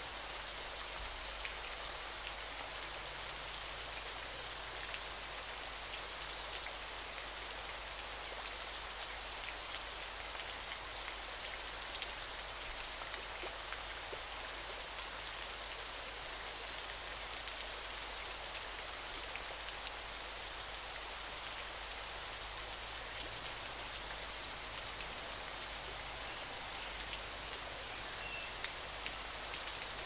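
Steady rain falling: an even hiss of dense drops, with faint ticks of single drops and a low rumble underneath.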